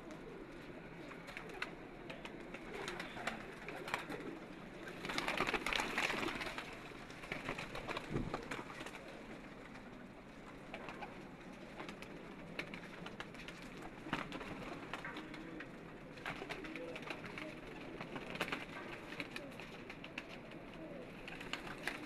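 Domestic pigeons cooing, with scattered short clicks and a louder noisy stretch about five seconds in.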